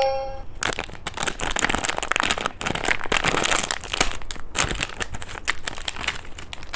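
Candy wrapper crinkling as it is handled and opened, in a dense run of crackles.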